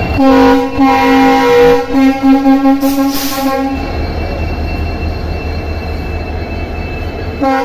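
Diesel-electric locomotive horn sounding one long blast of about three and a half seconds that wavers toward its end, with a short hiss near its end. Then the locomotive's diesel engine runs with a steady low rumble as it pulls past close by.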